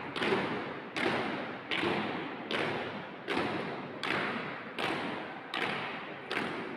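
A squad of marchers stamping in unison on a hard tiled floor in drill step, one heavy footfall about every three-quarters of a second. Each footfall echoes around a large hall.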